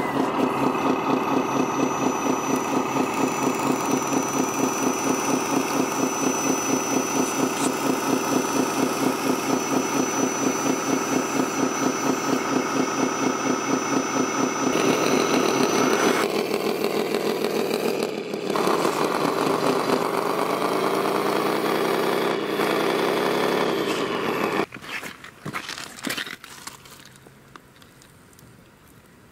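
Radio-controlled tipper truck's engine sound running with a steady rhythmic chug. About halfway in it changes to a steadier tone whose pitch rises and falls, then cuts off sharply about three quarters in.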